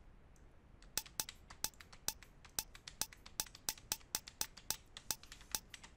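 A home-made snare sound built from three layered recordings of hand claps, triggered over and over as short, sharp hits. The hits start about a second in and come about four or five a second.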